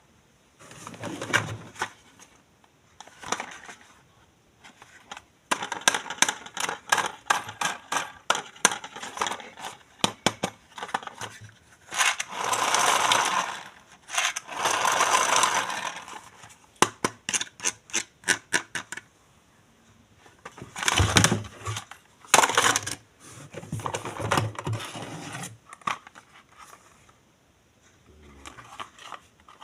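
Plastic toys and their packaging being handled and unboxed: quick runs of small clicks and taps, two long rustling sweeps near the middle, and a few heavier knocks in the second half.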